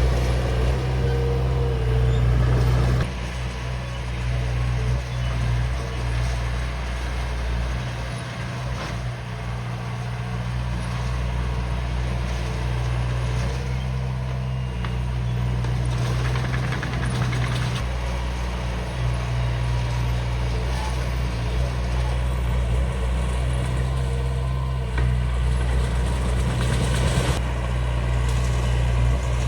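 D20 bulldozer's diesel engine running steadily with a low, even drone; it drops slightly in level about three seconds in and rises again near the end.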